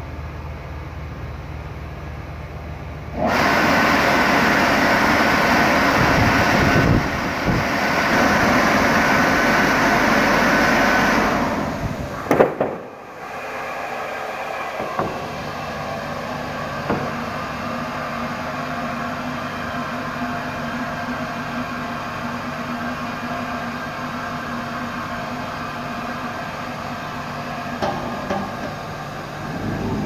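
Fridge-liner vacuum forming machine at work: a low steady hum, then a loud rush of air for about eight seconds that stops abruptly with a couple of sharp knocks, after which the machine hums more quietly.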